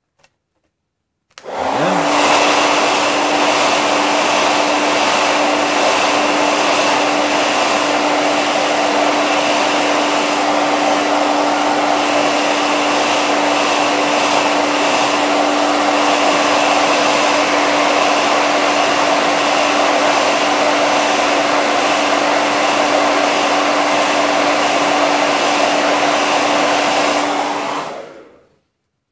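Handheld hair dryer blowing hot air, a steady rushing noise with a constant motor hum. It is switched on about a second and a half in and switched off about a second before the end.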